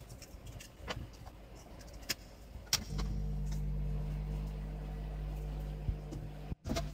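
A few light clicks, then about three seconds in a hot-air rework station's blower switches on and runs with a steady hum, used to heat the laptop's Nvidia graphics chip. The sound drops out briefly near the end.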